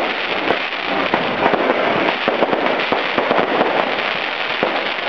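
Fireworks going off in quick succession: a dense, unbroken crackle of many small pops and bursts.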